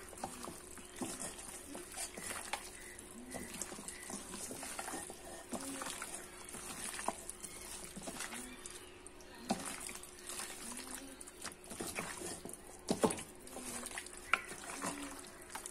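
A hand mixing and squeezing wet, marinated meat pieces with chopped tomatoes and herbs in a stainless steel bowl: soft irregular wet squelches and small clicks against the bowl.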